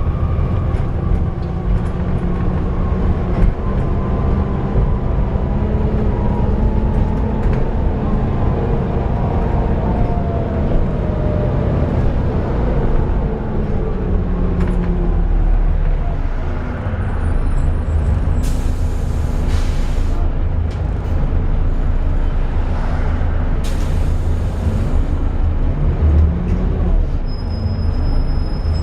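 Volvo B7TL double-decker bus running, heard from on board, with the whine of its loud 'hoover' cooling fan. Whining tones fall in pitch over the first half as the bus slows, and two short hisses of air from the brakes come about five seconds apart in the second half.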